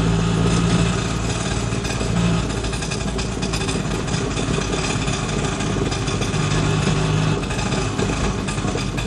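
Auto-rickshaw's small engine running steadily at idle.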